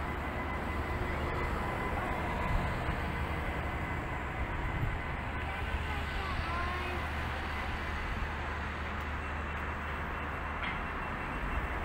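Steady low rumble of outdoor city background noise, with faint constant hums above it and no distinct events.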